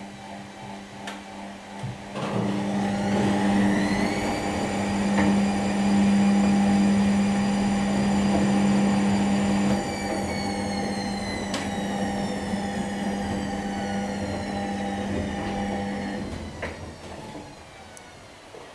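Bauknecht WA 9350 washing machine spinning: the motor whine rises as the drum speeds up, holds steady, then winds down slowly after about ten seconds. A steady hum runs underneath and stops near the end, with a few light knocks.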